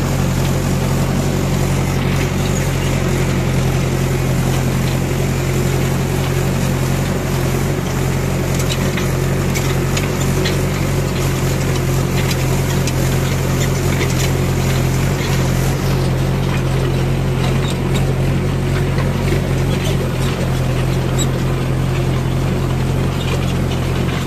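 Tractor diesel engine running at a steady pace under load while pulling a harrow frame across a ploughed field, with light scattered clicks and rattles from the implement.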